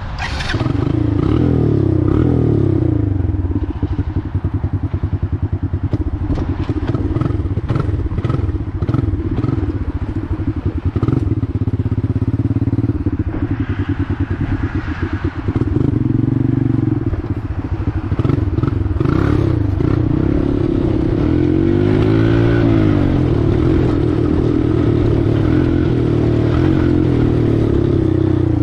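1986 Honda FourTrax four-wheeler's engine running under way, its pitch rising and falling with the throttle, with a rev up and back down a little past the middle. Many short rattling clicks come through in the first half.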